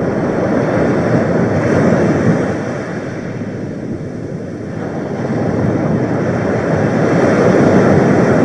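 Sea waves washing in, a steady rushing that swells, eases off in the middle and builds again near the end.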